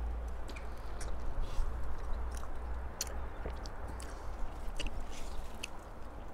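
A person chewing a small piece of juicy Meyer lemon, with scattered small mouth clicks over a steady low rumble.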